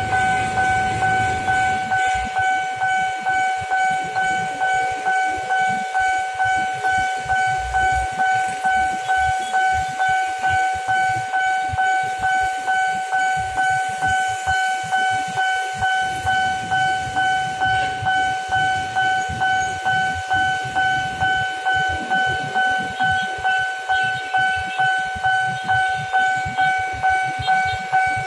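Railway level-crossing warning bell ringing on without a break: an electronic chime of two steady tones, one an octave above the other, repeating in even, rapid strokes. It warns that a commuter train is approaching.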